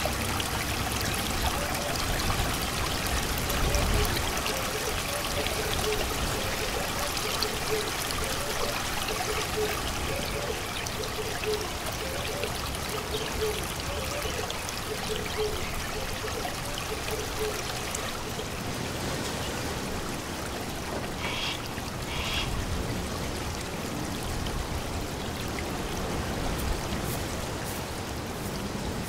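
Steady heavy rain falling on jungle foliage, with a faint run of short repeated calls underneath through the first half.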